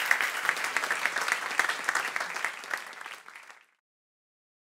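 An audience applauding after a talk, a dense patter of many hands clapping. It thins out and then cuts off abruptly to silence a little before the end.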